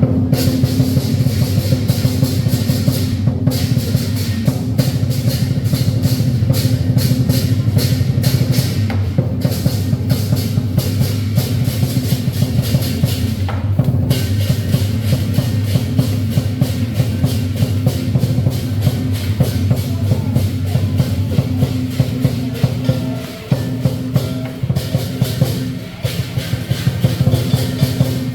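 Lion dance percussion: a large drum beaten in a fast, driving rhythm with clashing cymbals. The playing thins briefly twice near the end.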